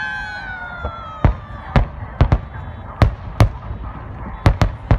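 Aerial fireworks shells bursting in a display, about nine sharp booms at uneven intervals, several in quick pairs, over a low rumble. A falling tone with overtones sounds in the first second or so.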